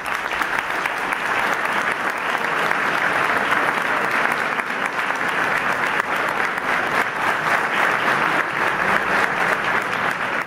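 A large audience applauding, many hands clapping in a steady, dense ovation.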